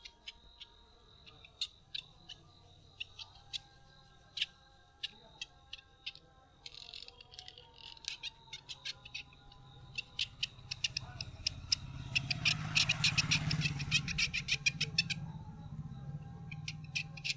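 Scattered sharp clicks and taps that quicken into a dense rapid flurry from about ten to fifteen seconds in, over a low hum, then thin out again.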